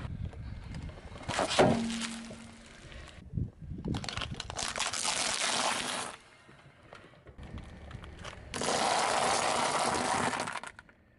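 Car tyre rolling over dry pasta shells and crushing them with a dense crackling crunch, in two stretches, the second cutting off suddenly near the end. A single loud crack comes about a second and a half in.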